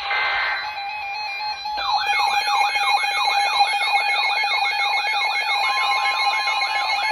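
NOAA Weather Radio receiving a new severe thunderstorm warning. The end of a screeching SAME data burst gives way about two seconds in to a weather radio's warbling siren-style alarm, sweeping about three times a second, and a steady warning tone joins it near the end.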